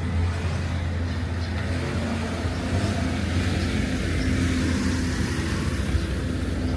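A motor vehicle's engine running nearby: a steady low hum, with a rush of noise that swells and eases off around the middle.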